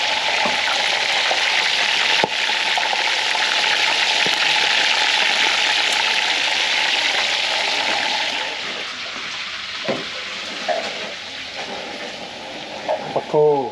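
Maya fish deep-frying in hot oil: a steady, loud sizzle that drops noticeably about eight seconds in. There is a single sharp click about two seconds in.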